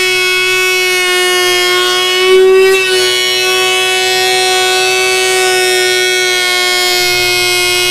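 Surface planer running with a loud, steady high-pitched whine while planing a black limba board. About two and a half seconds in it briefly gets louder and dips slightly in pitch.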